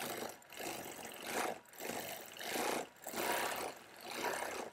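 Longarm quilting machine stitching in short runs of about half a second to a second, stopping and starting several times as it quilts feather shapes.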